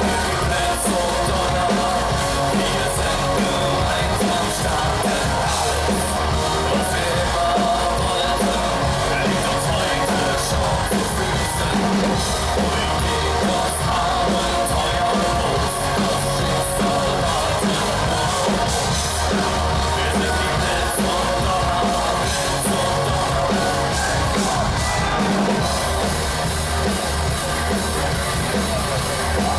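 Live industrial metal band playing loud, with distorted guitars, a steady drum beat and shouted vocals.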